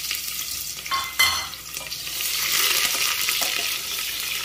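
Chopped onions sizzling in hot oil in a pressure cooker, with a wooden spatula stirring them. There are two sharp knocks about a second in, then the sizzle builds again.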